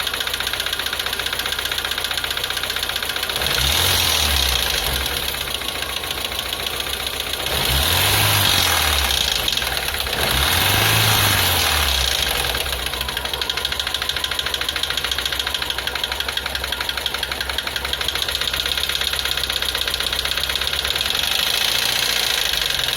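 VAZ-21083 four-cylinder engine idling with a knock, revved briefly three times, each rev rising and falling back to idle.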